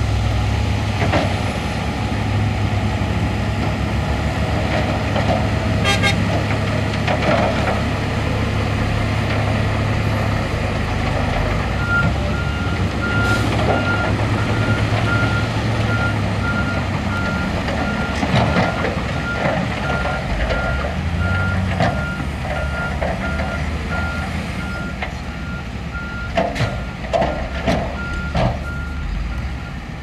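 Heavy dump truck's diesel engine running, with its reversing beeper sounding a steady, evenly repeated beep from about twelve seconds in as it backs up to tip. Near the end a few sharp knocks come as the raised bed starts to dump its load of rock.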